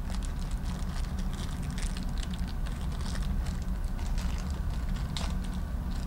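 Small plastic hardware baggie crinkling and rustling as it is opened and the wall anchors and screws inside are handled: a scattered run of light clicks and crackles over a steady low hum.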